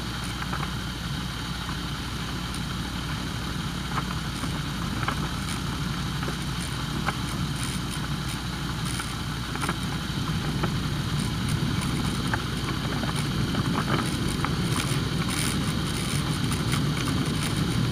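Flexwing microlight's engine running steadily at low power as the aircraft rolls along the runway, a low hum under a noisy rush, with scattered light clicks and rattles throughout.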